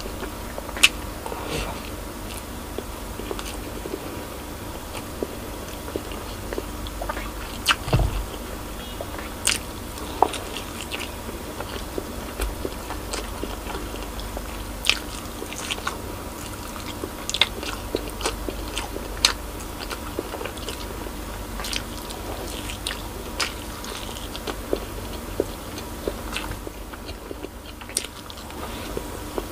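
A person chewing and biting braised pork spare ribs and rice, eaten by hand, with frequent short, sharp mouth clicks.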